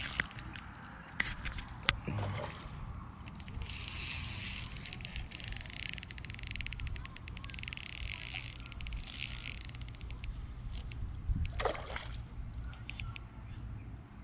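Water splashing and sloshing as a hooked peacock bass is landed at the bank, with a long stretch of fast fine crackle in the middle and a few sharp clicks near the start.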